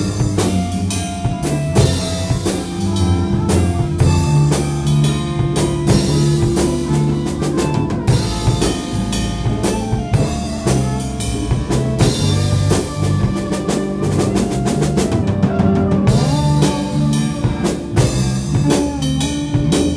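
A small live band jamming: a drum kit keeps a busy beat with frequent sharp strikes under guitars and other pitched instruments holding and shifting notes.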